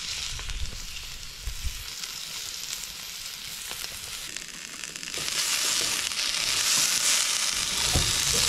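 Steaks sizzling as they sear in a hot cast-iron skillet, then from about five seconds in a louder, brighter sizzle as asparagus and potatoes are turned with tongs in a pan.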